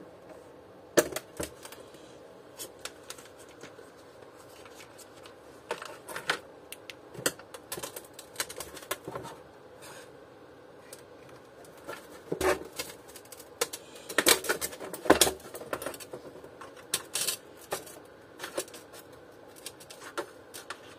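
Plastic vacuum cleaner housing being turned over and handled on a workbench: scattered clicks and knocks of plastic against the bench and small tools, coming in clusters with quiet gaps between.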